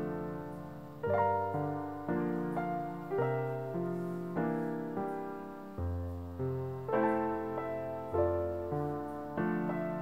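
Calm solo piano music, a new note or chord struck about twice a second and each left to ring and fade.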